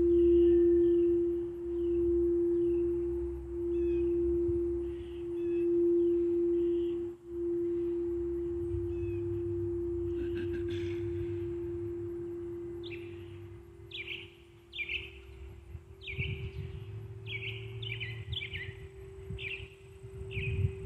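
Quartz crystal singing bowl holding one steady tone that pulses in volume at first and then slowly fades, over a low rumble. Birds chirp throughout, and about two-thirds of the way in one starts calling in quick repeated short falling notes.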